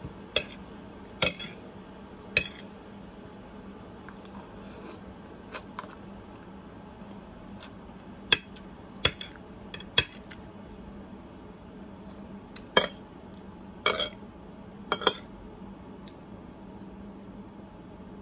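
Metal fork clinking and scraping against a plate of noodles: about ten separate sharp clicks scattered through the stretch, with a bunch of louder ones between about 8 and 15 seconds in.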